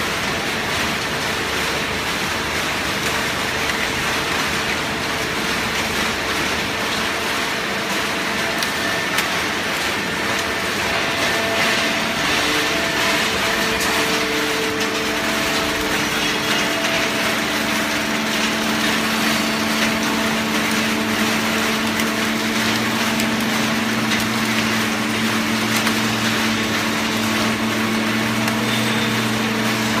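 Hydraulic horizontal baling press running: a steady, loud machine din with several steady hum tones. A deeper hum grows stronger about two-thirds of the way through.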